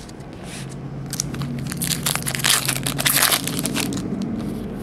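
Foil trading-card pack wrapper being crinkled and crushed by hand, a dense crackling that is loudest about midway through.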